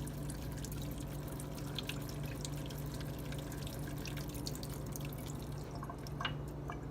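Water dripping and splashing in small drops from a freshly rinsed whetstone, over a steady low hum.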